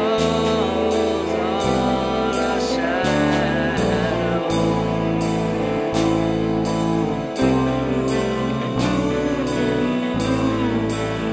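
Chinese pop song: a voice sings a line and then drawn-out "ah" vocalising over sustained bass notes and a steady beat.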